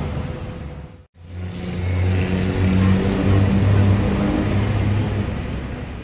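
Busy city street traffic, with a heavy vehicle's engine giving a low drone through the middle. The sound drops out abruptly for a moment about a second in.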